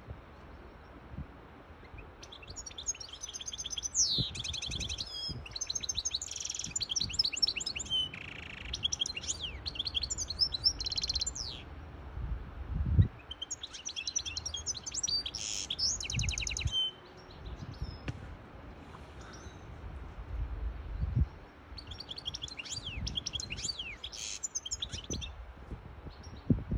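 Caged European goldfinch hybrid singing: three bouts of fast, high twittering song, a long one starting about two seconds in, a shorter one near the middle and another near the end. Low rumble underneath, with a thump about halfway through.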